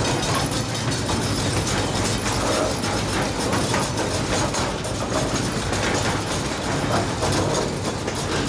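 A 15-inch gauge miniature train running along its track, heard from aboard a passenger car: a steady rumble of the cars rolling, with the wheels clicking over the rails.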